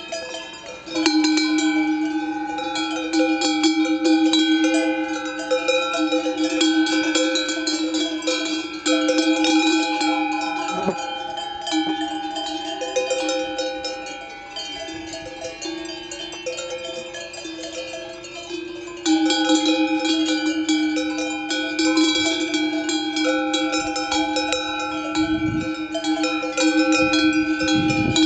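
Many large cowbells worn by grazing cows ringing together in a continuous, overlapping jangle, with one bell close by. The ringing gets louder about a second in, eases off in the middle and comes back loud about two-thirds of the way through.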